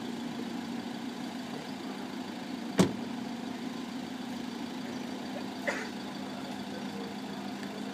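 Steady low mechanical hum, like an engine running at idle, with one sharp loud knock about three seconds in and a fainter clack near six seconds.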